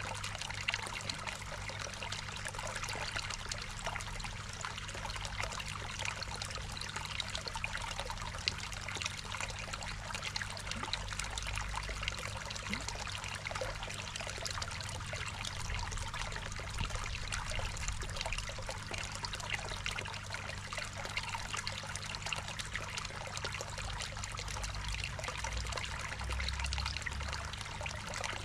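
Water trickling and splashing steadily into a garden koi pond, with a low steady hum underneath.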